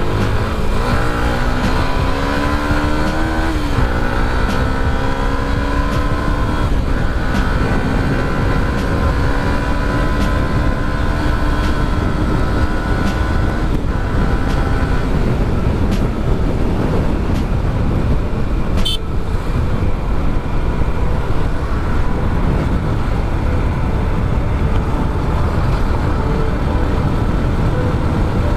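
Yamaha R15 V2's single-cylinder engine pulling through the gears, its revs rising and dropping twice at gear changes in the first seven seconds, then holding a steady cruise. After about fifteen seconds a heavy rumble of wind and road noise covers it, with one sharp click partway through.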